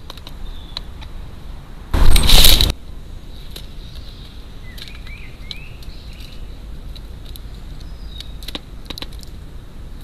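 Great spotted woodpecker at a plastic seed tray: scattered sharp taps of its bill, with a loud rush of noise lasting under a second about two seconds in, and faint bird chirps about halfway through.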